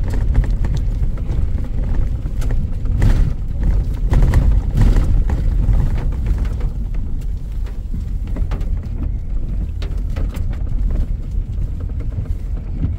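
Truck driving on a rough, snowy road: a steady low rumble of engine and road noise, with scattered knocks and clatters from bumps, most of them a few seconds in.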